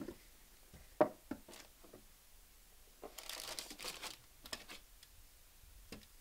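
Cardboard shoebox handled, with a few knocks about a second in, then a plastic candy bag crinkling for about two seconds as a hand rummages in the box.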